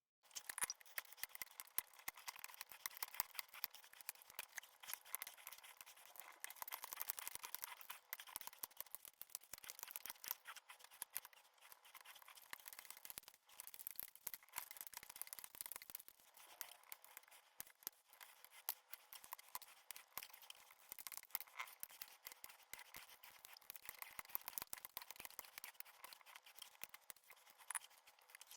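Dense, rapid run of small sharp clicks and scratchy rubbing from handling and cleaning a Logitech G915 clicky mechanical keyboard, starting and stopping abruptly, with no low end.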